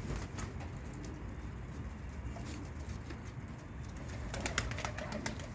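Domestic pigeons cooing on a rooftop over a steady low rumble, with a quick run of sharp clicks or taps about four and a half seconds in.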